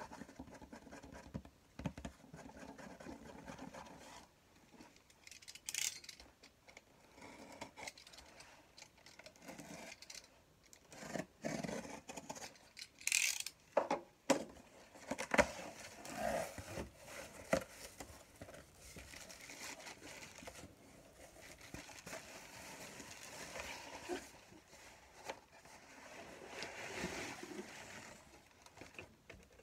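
Cardboard box and plastic packaging being handled: irregular rustling, scraping and crinkling, with a few sharper crackles of plastic wrap in the middle, and the box being pulled open near the end.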